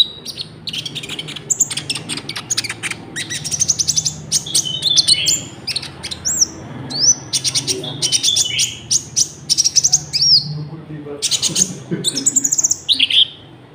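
Konin (kolibri ninja sunbird) singing a fast, busy song of high chirps, rapid trills and short falling whistles, with cricket-like ticking trills worked into it.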